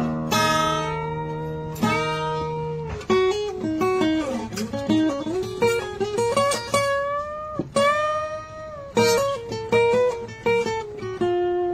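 Acoustic guitar played solo, a picked melody of single notes and chords, with a few notes sliding or bending in pitch.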